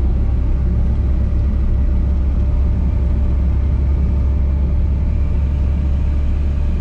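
Volkswagen car's engine and road noise heard from inside the cabin while driving: a steady, loud low drone that does not change.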